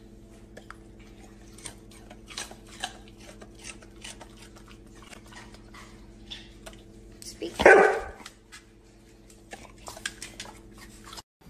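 Siberian husky giving one short, loud bark about two-thirds of the way in. A steady low hum and scattered small clicks and taps run underneath.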